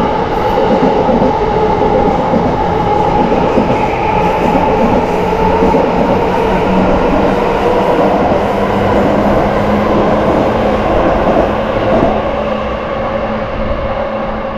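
Yamanote Line electric commuter train passing at close range. A steady, loud rumble of wheels on rails with a low held hum, easing off a little near the end.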